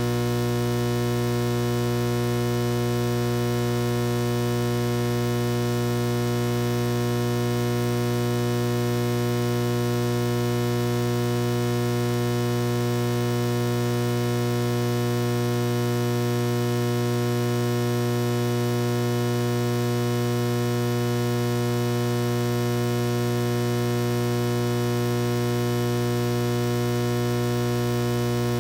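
Steady electrical mains hum, low-pitched with a buzzy edge of higher overtones.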